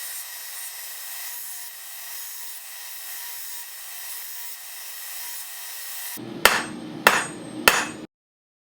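A steady rasping noise of metal being cleaned up on a pair of forged tongs, then three sharp hammer blows on steel about half a second apart, each ringing briefly, before the sound cuts off.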